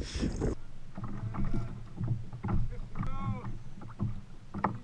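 Low rumble of wind and water around a kayak at sea, with faint voices in the background and one short knock near the end.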